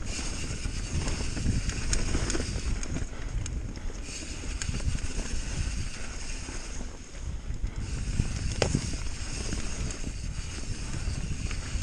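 Bird Aeris mountain bike riding fast down a dirt trail: steady tyre rumble and wind buffeting the microphone, with the chain and frame rattling and sharp knocks now and then, the loudest about two-thirds of the way through.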